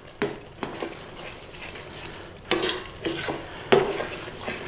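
Metal spoon stirring thick cooked split peas in a stainless steel pot, working in a lump of butter, with a few scrapes and clinks against the pot's sides.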